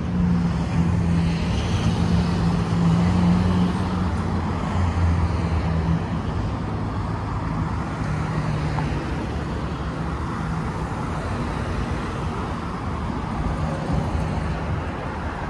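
Street traffic: a motor vehicle's engine running close by, loudest in the first few seconds, over steady road noise from passing cars.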